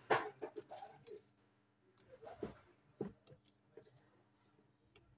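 Irregular light clicks and taps of small metal hand tools working on a phone's circuit board, the loudest about a tenth of a second in and another near three seconds.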